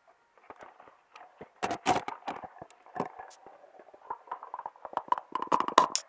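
Plastic cups and containers being handled and set down in a cardboard box: a string of irregular light clicks and knocks with quieter rustling between them.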